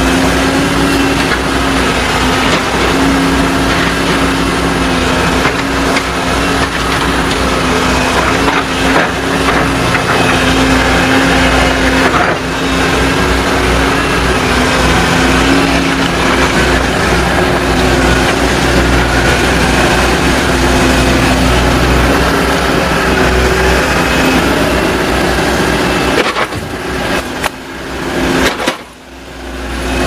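Volvo crawler excavator's diesel engine running steadily with a constant hum while the machine swings and loads. Near the end the sound briefly drops away sharply, then returns.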